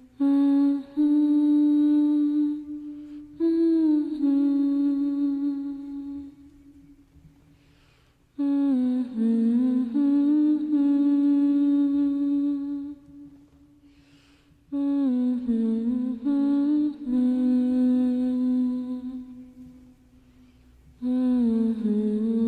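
A solo singer humming a slow, wordless melody in long held notes, in about four phrases with short pauses between them.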